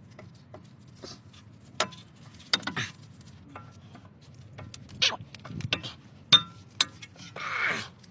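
Scattered metallic clinks and knocks of brake parts and tools being handled, one clink ringing briefly, with a short rushing scrape near the end.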